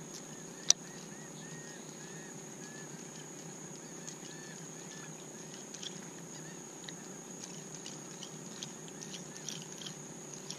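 A topwater plug is worked across calm water from a kayak, making faint small splashes and ticks in the second half. A single sharp click comes about a second in. Faint repeated short chirps and a steady high hiss run underneath.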